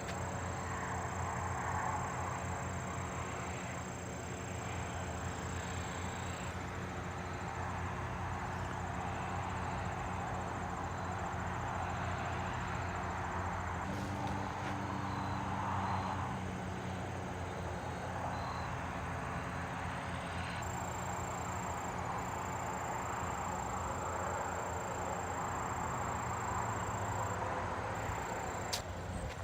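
An engine running steadily at constant speed, with faint high steady tones above it.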